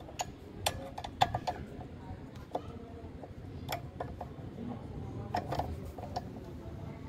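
Sharp metallic clicks and taps from hand tools working the bolts of a small electric water pump, coming irregularly: a quick cluster in the first second and a half, then single clicks every second or so.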